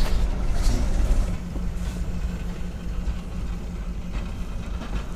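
A passing train, heard as a steady low rumble that eases off slightly after about a second and a half, with a couple of short knocks near the start.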